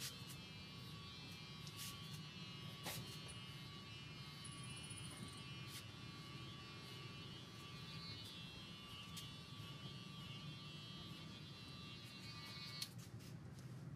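Electric hair clippers buzzing steadily while cutting hair at the back of the head, switched off with a click near the end.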